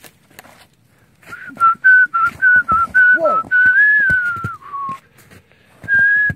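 Loud whistling: a quick run of short notes on one pitch, then a longer note that rises, falls and drops lower, and after a short pause another held note starts near the end. A man's 'Whoa!' cuts in midway. The hikers take the whistling for a bird.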